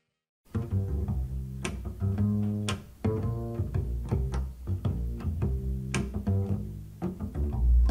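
Music played back through budget desktop speakers and picked up by a recorder's microphone: deep plucked bass notes with sharp attacks, starting about half a second in after a brief silence.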